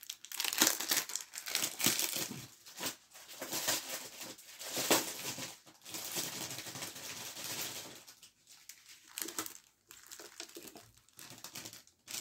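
Clear plastic packaging crinkling and rustling as it is handled and pulled open. The crackling is dense for the first two-thirds, then thins out to scattered light rustles and small clicks near the end.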